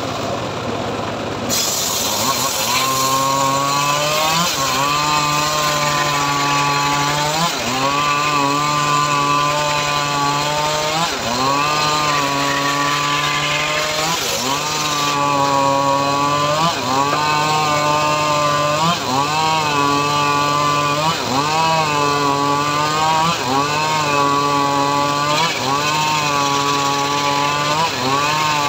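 Homemade engine-driven circular saw bench ripping mahogany boards: a harsh cutting hiss with a pitched whine over it. The whine dips in pitch and recovers about every second and a half.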